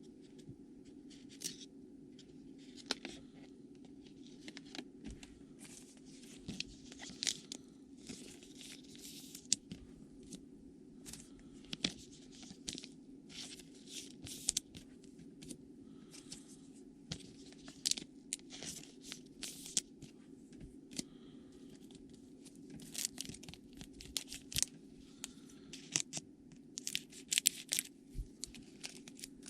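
Trading cards and foil pack wrappers being handled: many short, irregular rustles, scrapes and flicks as cards slide past one another, over a steady low hum.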